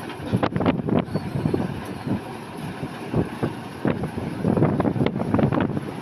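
Kartar combine harvester's diesel engine running as the machine drives slowly along the road, an uneven, loud rumble with irregular surges.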